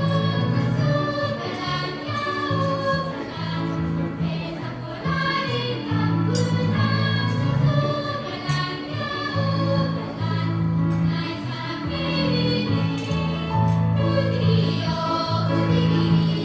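Children's choir singing together over an amplified instrumental accompaniment.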